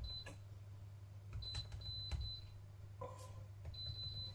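Touch controls of a glass-ceramic hob beeping as it is switched off: several short high beeps and one lower beep about three seconds in, with a few light taps, over a low hum.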